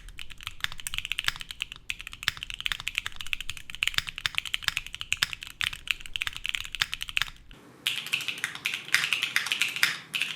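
Fast, continuous typing on a Neo65 CU mechanical keyboard with a copper case, carbon fibre plate, Akko V3 Yellow Pro switches and PBT keycaps, no foam: a bright, clacky, hard-plastic keystroke sound. About three quarters of the way through the typing breaks off briefly and resumes sounding thinner and higher, without the low rumble under it.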